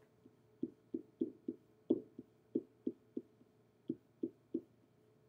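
Pen stylus tapping against an interactive whiteboard while writing: about a dozen short taps at an uneven pace.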